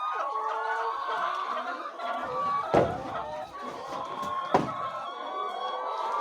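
A flock of laying hens clucking and calling all together, many voices overlapping. Two sharp knocks cut through, about three seconds in and again about a second and a half later, the first the louder.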